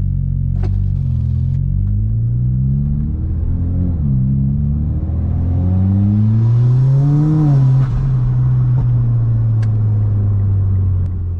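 Mitsubishi Lancer Ralliart's turbocharged 2.0-litre four-cylinder, fitted with the stock Evo X turbo, under hard acceleration, heard from inside the cabin. The engine pitch climbs and drops back with quick upshifts several times, peaks about seven seconds in, then settles to a steady cruise.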